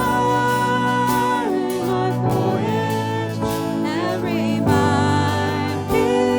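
Contemporary worship song: band music with long held sung notes.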